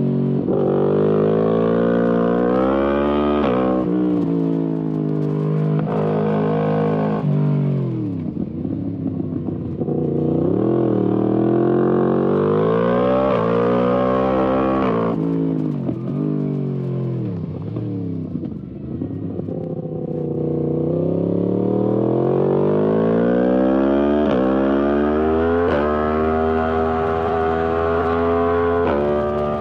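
Yamaha MT-10 SP's crossplane inline-four engine through an Akrapovic exhaust, pulling hard through the gears. The revs rise and then drop sharply at each upshift. About halfway in the revs fall away, as when rolling off for a bend, then they climb steadily again toward the end.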